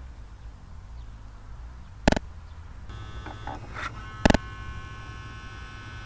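A low steady hum, with two sharp clicks about two seconds apart. From about three seconds in, a faint steady high electric whine sounds over the hum.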